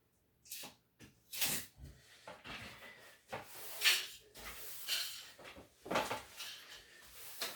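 Household objects being handled and moved: an irregular run of knocks, scrapes and light clatters, the loudest about four seconds in.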